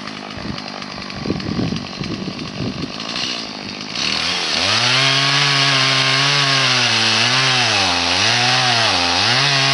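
Stihl MS 180 two-stroke chainsaw ticking over, then revved to full throttle about four seconds in and cutting, its pitch dipping several times as the chain bogs down in the wood.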